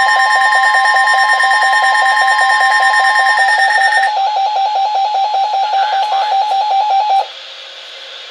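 Several NOAA weather alert radios sound their alarms together, set off by the National Weather Service's Required Weekly Test. A rapid pulsing beep runs under steadier higher tones. The tones drop out one by one, and the pulsing beep cuts off suddenly about seven seconds in.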